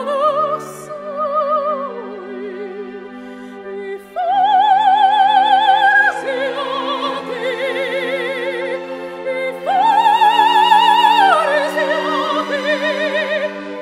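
Background music: an operatic solo voice singing long held notes with a wide vibrato over a sustained orchestral accompaniment. The voice jumps up to a loud high note about four seconds in, and again about ten seconds in.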